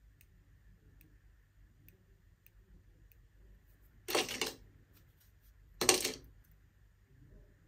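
Two brief clattering clinks about a second and a half apart, like small metal manicure tools being set down on a hard work surface.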